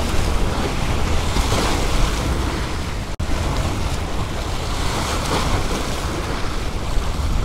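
Waves breaking and washing against granite jetty boulders, with strong wind buffeting the microphone as a low rumble. A split-second dropout about three seconds in.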